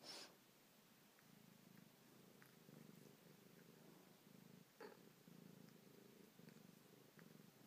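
A cat purring softly in breath-long pulses, with a short rustle at the start and a small click about five seconds in.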